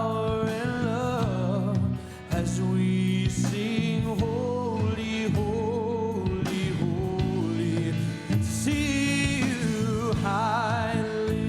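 Worship band playing a slow gospel song with sustained chords, a voice singing over it.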